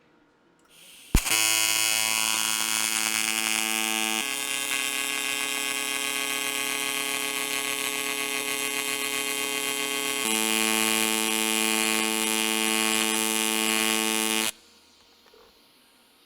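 AC TIG welding arc on aluminium: a sharp crack as the arc strikes about a second in, then a steady buzz that shifts in tone twice and cuts off suddenly when the arc is broken.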